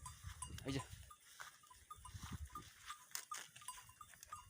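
Goats feeding on grass, one giving a short bleat a little under a second in, with faint scattered clicks.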